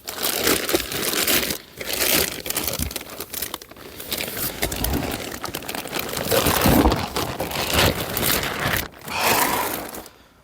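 A new car battery's packaging being torn open and handled: a run of crinkling, rustling and tearing with a few short pauses.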